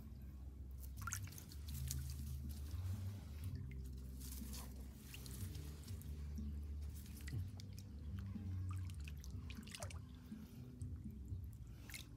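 Hands sweeping and splashing through shallow water, with scattered drips and small splashes, over a low steady rumble.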